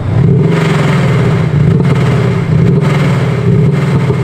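Aftermarket active sound actuator on a BMW 730d (3.0-litre turbodiesel) playing a loud synthetic V8 exhaust note under load. The note rises and falls back about once a second, with a few sharp pops from its simulated afterfire.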